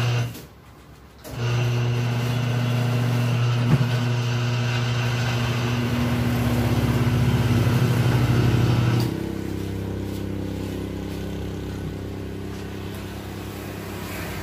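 Electric motor of tire-shop machinery running. A short burst right at the start, then about a second later a loud steady hum that runs for about eight seconds before dropping to a quieter steady running sound.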